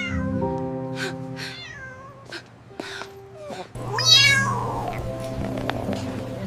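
A cat meowing several times over background music, with the loudest and longest meow about four seconds in.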